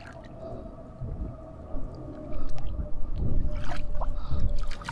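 Wind buffeting the microphone in strong low gusts from a little past two seconds in, over water lapping at the kayak and a faint steady whine.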